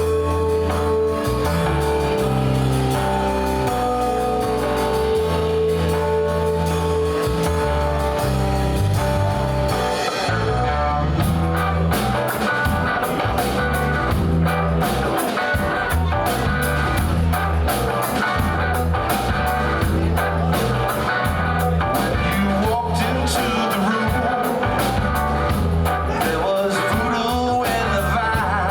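Rock music playing on a push-button radio: bass and guitar, then from about ten seconds in a steady drum beat takes over.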